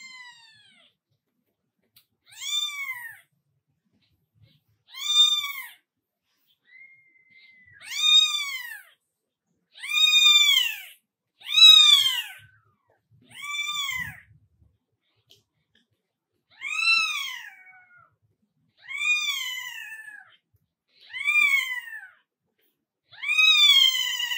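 Newborn kitten mewing over and over, a thin high call about every two seconds, each rising and then falling in pitch. These are the calls of a kitten that has crawled away from its mother.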